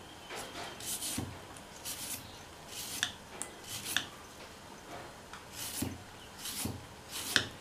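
Vegetable peeler scraping the skin off a cucumber in short, repeated strokes, with a few soft knocks against a wooden cutting board.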